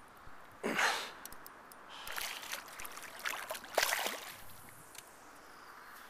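River water splashing and trickling close by as a hand dips into it: a sharp splash about a second in, more sloshing a couple of seconds later, and another strong splash near the end.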